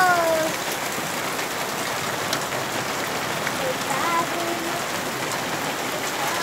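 Steady rain falling and pattering on the ground during a hailstorm, with a few faint ticks.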